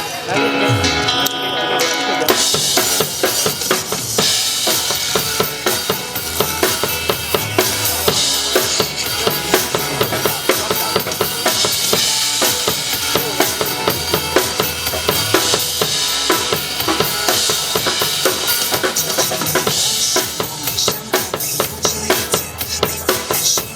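Drum kit played live along with backing music: steady bass drum, snare hits and cymbals. The full beat with cymbals comes in about two seconds in.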